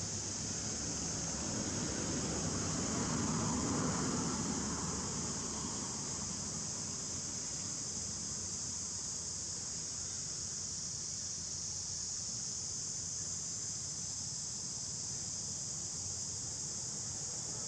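Steady high-pitched insect chorus. A low rumble swells and fades about two to five seconds in.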